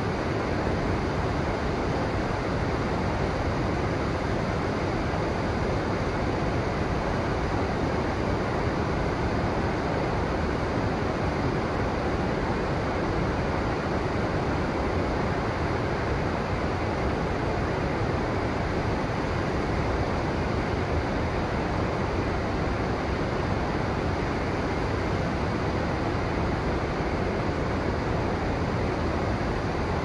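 River water rushing, a steady, unchanging rush of flowing water.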